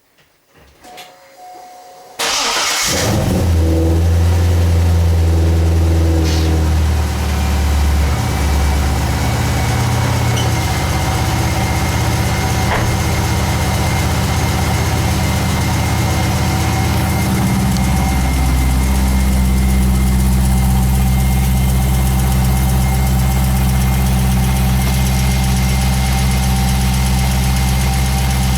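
Car engine started about two seconds in, running at a fast idle that settles and drops to a lower idle later on, with a thin steady high-pitched tone over it. This is the strange noise that appeared after a clutch change and is present whether or not the clutch pedal is pressed.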